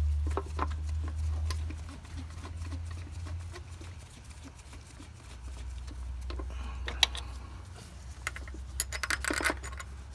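Light metallic clicks and taps as a new aluminium water pump is set against the engine and its bolts are handled and started by hand, with a quick cluster of clicks near the end. A low steady rumble sits underneath.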